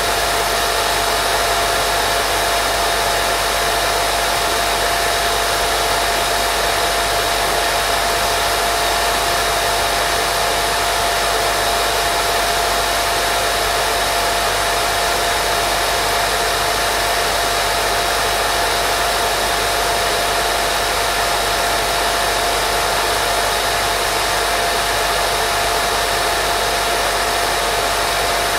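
Steady white noise for baby sleep: an even, unchanging hiss with a faint steady whine running through it.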